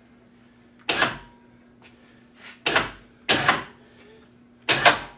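A series of sharp knocks or clanks, five in a few seconds, each dying away quickly, over a faint steady hum.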